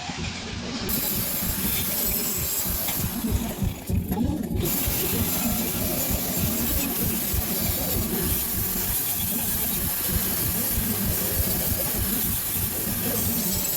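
Arc welding on a trailer's dolly leg: a steady, crackling hiss, briefly thinning about three to four and a half seconds in.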